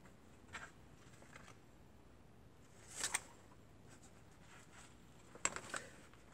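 A few faint, brief rustles and soft taps of a stack of paper journal pages being handled and set down on a cutting mat, the loudest about three seconds in.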